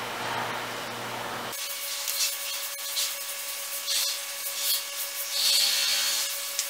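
Small paintbrush brushing acrylic paint onto canvas: several short, hissy swishes, the longest near the end.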